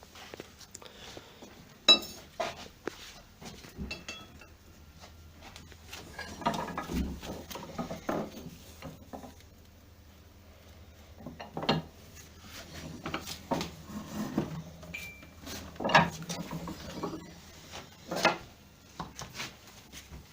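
Metal tools and alternator parts clinking and knocking on a workbench as the alternator is worked on, with scattered sharp knocks, the loudest about two seconds in and more toward the end.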